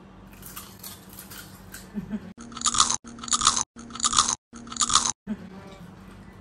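Several people crunching and chewing Lay's potato chips. The crunching is faint at first, then comes as four loud bursts from about two and a half seconds in, each cut off sharply.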